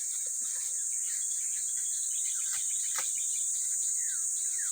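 Steady high-pitched chorus of insects, crickets or cicadas, with a few short falling bird chirps and a single click about three seconds in.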